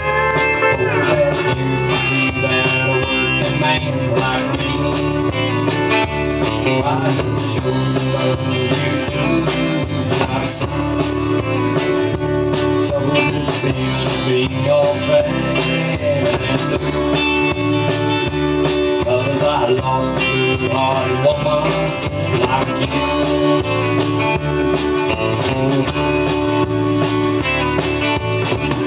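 Instrumental break of a country song: a band with guitars playing steadily, with a harmonica played over it.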